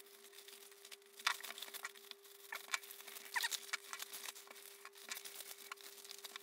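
Taped bubble wrap crinkling and crackling in irregular bursts as hands pick at it and pull it apart, over a faint steady hum.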